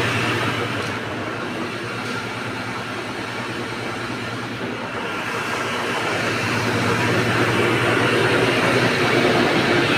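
Electric flour mill (chakki) running with a steady low droning hum, growing louder over the last few seconds.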